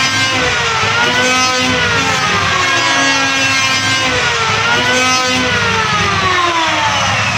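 Electric wood planer running loudly, its motor whine sliding down in pitch and snapping back up twice, about a second in and again just before the middle, over a rough hiss.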